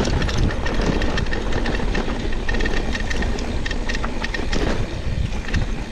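Mountain bike rolling down a rough, dusty dirt trail: tyre noise and the rattle of the bike over the bumps, with many small knocks.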